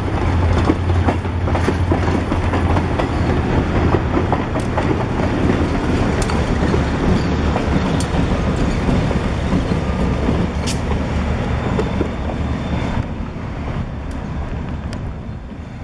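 Reading & Northern passenger train rolling past at close range: coach wheels clicking over the rail joints with scattered sharp clicks, then the trailing diesel locomotive's engine going by. The sound fades about thirteen seconds in as the train moves away.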